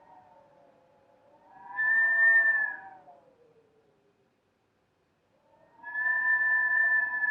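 Blizzard wind howling in whistling gusts: a pitched howl swells up and dies away, falls almost silent for a moment, then rises again near the end.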